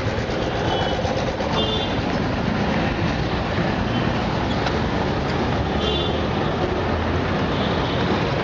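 Steady vehicle and traffic noise with short, high-pitched electronic beeps sounding every few seconds, in quick clusters at irregular gaps.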